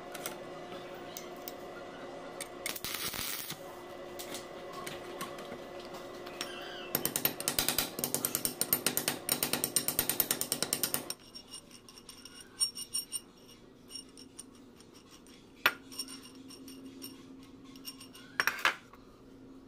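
Rapid metal-on-metal clicking and tapping at a steel nut on a threaded rod clamped in a bench vise, dense for about four seconds in the middle. It is followed by a few separate sharp knocks.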